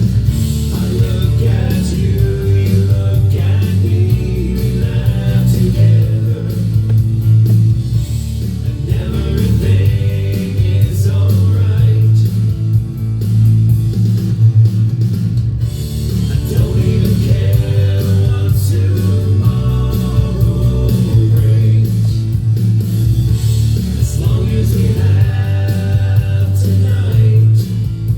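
Recorded rock song playing, with guitars, bass and drums, and singing.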